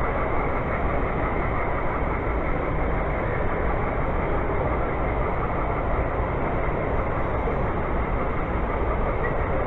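A model freight train rolling steadily along its track against the constant rumble and hiss of a large exhibition hall. No single event stands out.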